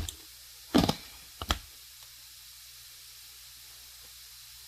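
Three knocks from dry-pasta boxes being handled and set down on a counter: one right at the start, one a little under a second in, a double knock about a second and a half in. After that only faint steady hiss.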